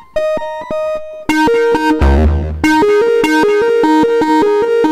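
Arturia SynthX V software synthesizer, an emulation of the 1980s Elka Synthex, playing a preset. A short held note is followed about two seconds in by a falling sweep over deep bass, then a fast repeating pattern of short notes.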